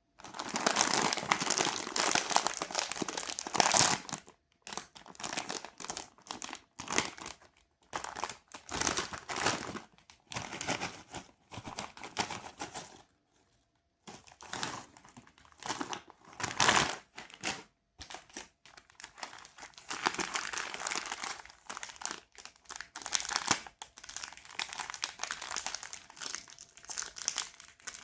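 Plastic candy and chocolate wrappers being crinkled and torn open in irregular bursts of rustling with short pauses, one brief silence about halfway through.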